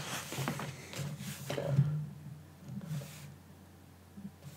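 Pages of a softcover book being turned and handled: paper rustling and hands sliding over the pages, mostly in the first two seconds, then quieter.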